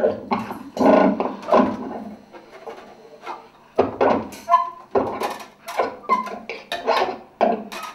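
Free-improvised music of irregular, quick knocks, rattles and clatters on found objects and homemade percussion, with a few short high squeaks among them.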